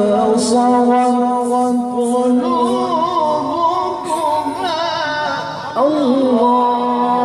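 A man's solo voice in melodic Quran recitation, holding long notes with slow ornamental turns in pitch. The line dips and glides down about six seconds in, then settles on another held note.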